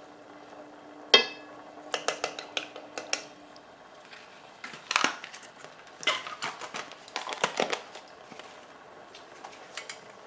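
Kitchen utensils clinking and clattering against a cooking pot and dishes. A sharp ringing metal clank comes about a second in, then several runs of quick, lighter clinks and knocks.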